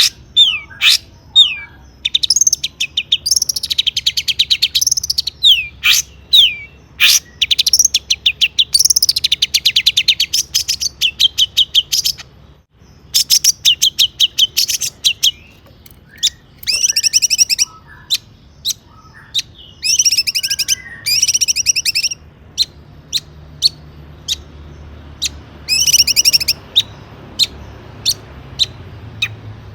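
Long-tailed shrike (cendet) singing a loud, varied song: sharp falling whistles, bursts of fast rattling trills and scattered sharp single notes, growing sparser near the end.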